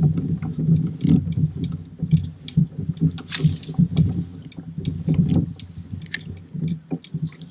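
A spinning rod is cast about three seconds in: a short swish with line running off the reel. Underneath are an uneven low rumble from the kayak on the water and small ticks from the reel being handled.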